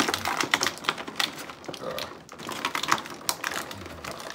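Clear plastic blister tray crackling and clicking as small toy parts are pressed and pried out of it by hand: a quick, irregular run of sharp clicks.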